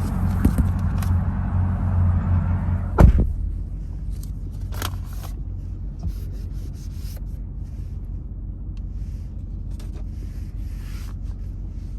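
Ram TRX pickup heard from inside the cab: a low buzzing vibration and rumble, the strange vibration noise the truck has developed. It is loudest for about the first three seconds, then a single knock, after which it settles to a quieter steady rumble.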